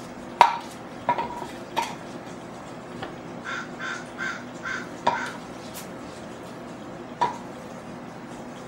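A few sharp clinks of hard objects knocking together, each ringing briefly. Between about three and a half and five seconds in comes a run of five short, harsh calls, evenly spaced.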